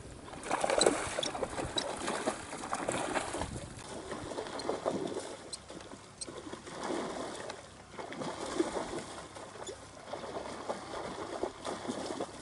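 Water splashing and churning in irregular surges as a school of fish feeds at the surface and seabirds dive into it.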